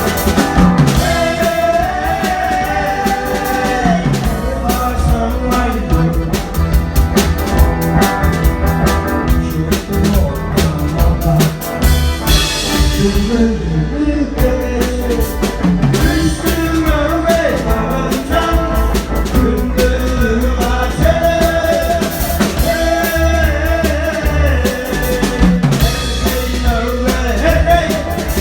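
Live band music: a singer's wavering melody over a drum kit keeping a steady beat.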